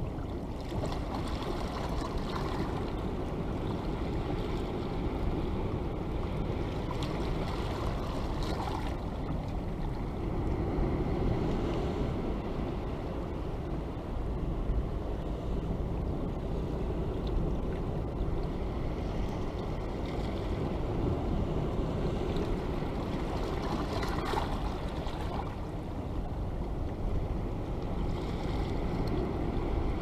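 Sea waves washing against a rocky shore: a steady low rush of surf, with two brief brighter splashes as waves break.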